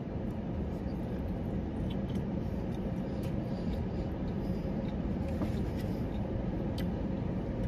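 Steady low rumble of a car heard from inside its cabin, with a faint steady hum throughout and a few faint light clicks.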